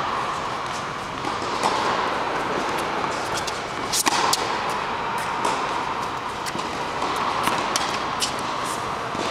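Tennis ball struck by racquets and bouncing on an indoor hard court during a rally: repeated sharp pops, the loudest about four seconds in, over steady background noise.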